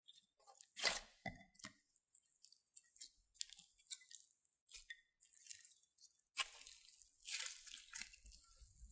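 Glossy slime being squished and worked by hand: a run of short, irregular wet squelches and sticky crackles, the loudest about a second in.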